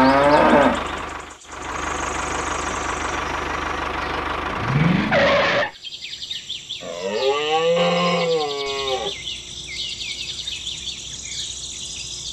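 Cow mooing several times, the longest moo about seven seconds in, over a steady engine noise that stops about halfway; small birds chirp in the second half.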